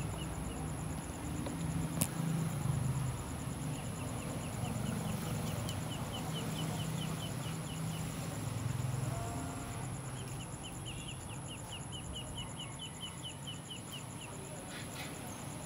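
Bird chirping in quick runs of short, high notes, about four a second, in two spells of a few seconds each, over a steady low background hum and a faint steady high whine. One sharp click about two seconds in.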